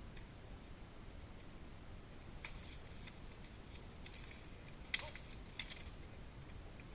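Polearms clashing against each other and against plate armour: four sharp metallic clacks with a brief ring, the loudest about five seconds in, faint against the open-air background.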